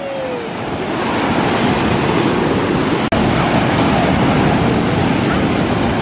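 Ocean surf breaking and washing up a sandy beach, a loud steady rush of water that swells about a second in. The sound cuts out for an instant about three seconds in.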